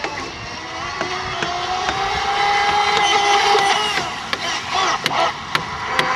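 Twin 5.5-turn brushless electric outboard motors of an RC mono-hull boat running at speed, a steady whine that rises slightly in pitch, is loudest around the middle and fades about four seconds in. Scattered sharp clicks sound throughout.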